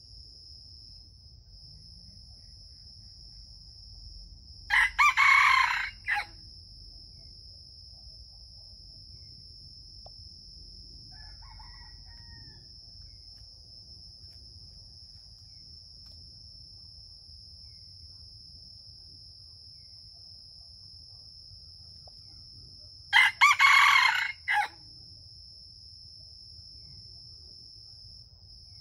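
A rooster crows twice, the crows about eighteen seconds apart and each short, about a second and a half, over a steady high-pitched insect drone.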